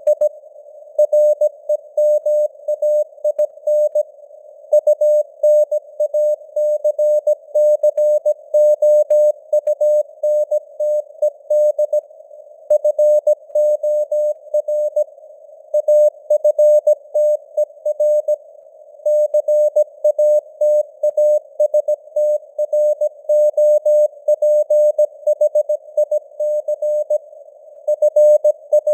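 Morse code (CW) at 17 words per minute: a single pitched beep keyed on and off in dots and dashes, with short pauses between words, over a faint hiss of simulated radio noise, the signal strength drifting up and down (QSB).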